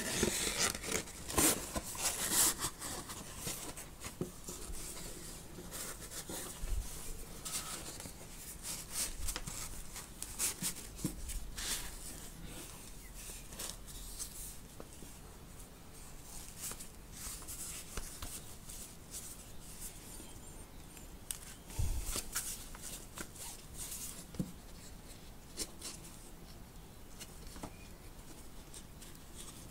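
A sewn-bound paper notebook being bent and slid into its cover by hand: paper and cover rustling and scraping, with many small taps and clicks. It is busiest in the first few seconds, with a sharper tap about two-thirds of the way through.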